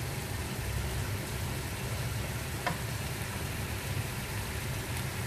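Pork ribs in black bean sauce sizzling in a wok, a steady sizzle over a low hum, with one small tap about two and a half seconds in.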